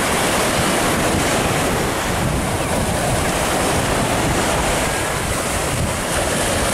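Choppy sea surf washing onto a beach under a strong wind, a steady rushing noise, with wind buffeting the microphone as a gusty low rumble.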